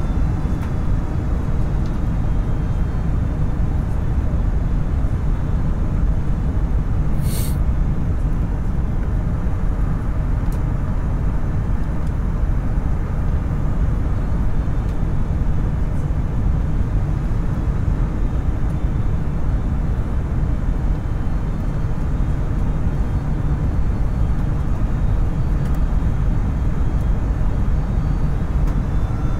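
Airliner cabin noise during the landing approach: a steady low rumble of the jet engines and rushing air, heard from inside at a window seat, with one brief sharp noise about seven seconds in.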